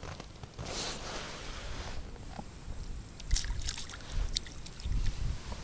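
Water splashing and sloshing as a hooked crucian carp is brought up to the surface on a float rod, with a few sharp clicks and low bumps from handling in the second half.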